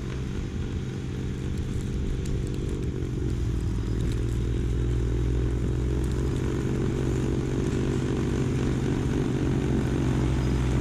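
Kubota LX2610 compact tractor's diesel engine running steadily under load while driving a front-mounted snowblower that throws snow, getting gradually louder as the tractor approaches.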